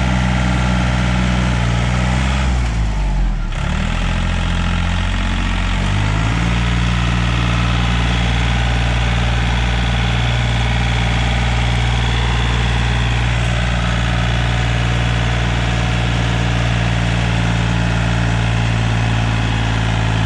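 John Deere 5036 EN tractor's diesel engine running steadily under load, pulling a cultivator through the soil. A few seconds in, its note sags and then climbs back to a steady pitch.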